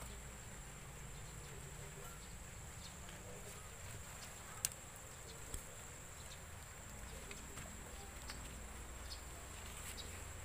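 Faint outdoor garden ambience: a steady high-pitched insect trill over a low rumble, with a few small clicks, the sharpest about halfway through.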